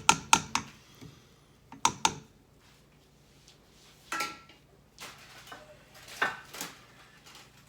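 Cookware clattering: a quick run of sharp metal clinks at the start, two more about two seconds in, a short ringing clink about four seconds in, and a few more around six seconds.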